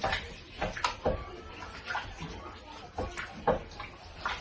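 A spoon stirring wet rice and beans in a cooking pot, knocking and scraping against the pot in irregular strokes.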